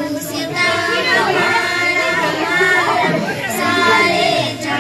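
Many children's voices at once, high and overlapping.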